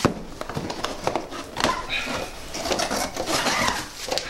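Cardboard packaging rustling and scraping, with a string of light knocks and taps, as the inner box and car are lifted out of a cardboard shipping box.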